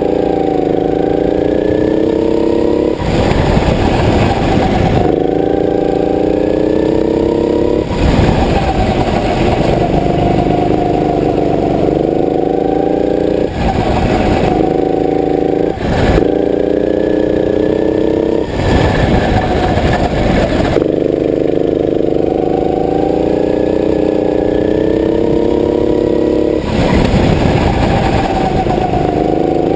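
Go-kart engine heard from the driver's seat while lapping, its pitch climbing repeatedly under acceleration and dropping back into the corners. Several times it is swamped for a second or two by a rush of noise.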